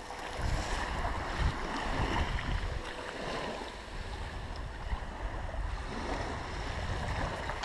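Small, gentle waves washing up and drawing back on a shingle-and-sand beach, with wind rumbling on the microphone.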